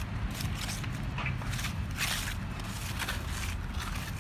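Hand tools scraping on paving material in short, irregular strokes about once a second, over a steady low rumble.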